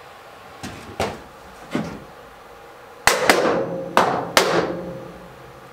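Metal clanks from a manual sheet metal brake and a thin galvanized steel sheet being handled in it: a few lighter knocks, then four loud clangs a little after halfway, each with a brief ring from the sheet.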